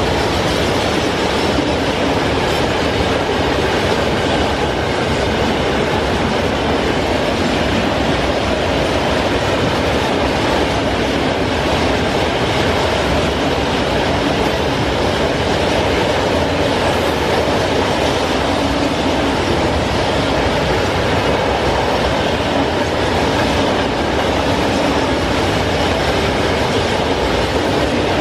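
Freight train of covered grain hopper wagons rolling past close by at a steady speed: the steady, loud noise of steel wheels running over the rails, wagon after wagon.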